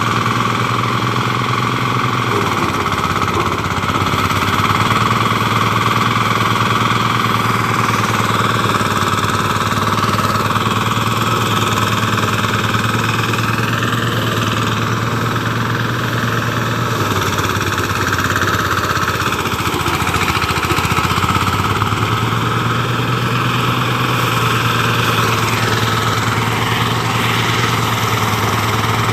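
An engine running steadily for the whole stretch, with a constant hum. Twice, for a few seconds each, its low note roughens and changes.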